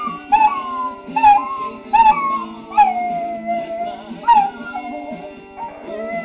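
Papillon dog howling along to music: about five short howls, each jumping up and sliding down in pitch, the one about three seconds in drawn out longest. Recorded music plays underneath.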